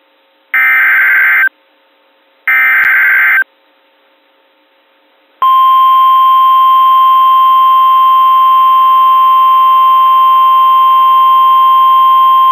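Two one-second bursts of SAME digital header code, a second apart, with a harsh buzzing warble: the data burst that opens an Emergency Alert System message. About five seconds in, a single steady alert tone at one pitch starts and holds: the NOAA Weather Radio warning alarm tone that signals a warning is about to be read.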